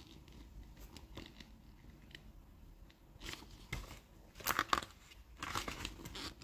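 Glossy catalogue pages being handled and turned, giving a few short paper rustles in the second half, the loudest just before five seconds in.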